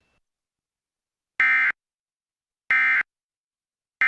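Emergency Alert System end-of-message code: short, identical buzzy digital data bursts about 1.3 s apart, two in full and a third starting right at the end, marking the close of the alert.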